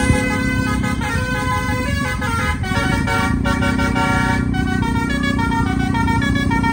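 Bus telolet air horn, driven by a Takur tune module, playing a melody of short stepped notes, over a steady low engine rumble.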